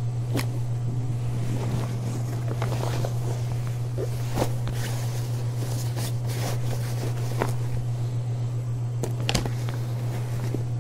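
Scuba gear being packed into a soft travel bag: the fabric and gear rustle and shift, with scattered light knocks and clicks from buckles, hoses and other hardware, over a steady low hum.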